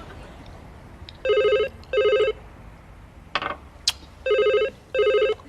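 Telephone ringing in the British double-ring pattern, two rings in quick succession, a pause, then two more. A couple of short clicks fall between the two pairs.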